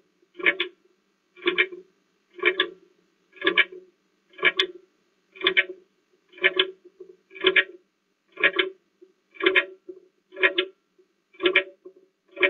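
Countdown timer sound effect: a clock ticking steadily, about one tick a second, marking the time allowed to answer a question.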